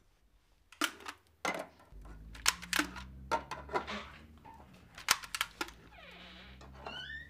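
A string of sharp, irregular clicks and knocks as a shop's glass door is handled and pushed open, ending in a short rising squeak as it swings. A low steady hum runs underneath from about two seconds in.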